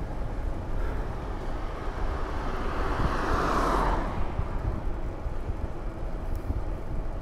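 Wind rumbling on a chest-mounted action camera's microphone while riding a bicycle, with a vehicle passing about three seconds in: its sound swells and then drops in pitch as it goes by.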